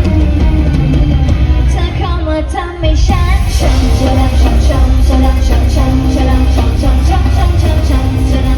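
Loud amplified pop-rock music with heavy bass and a singing voice, played through a concert PA. The music thins out about two seconds in and comes back loud about a second later.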